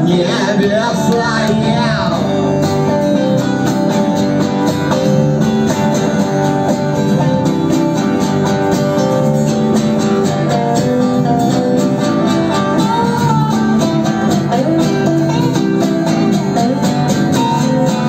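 Small live band playing an instrumental passage: strummed acoustic guitar with a second guitar over it, amplified through a PA.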